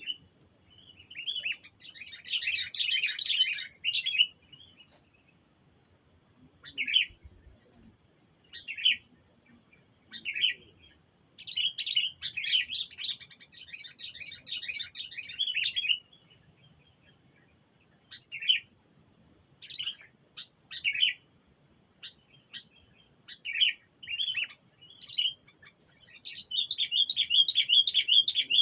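Sooty-headed bulbul (kutilang) calling: runs of rapid chattering notes of a few seconds each, at the start, in the middle and near the end, with short single phrases in between.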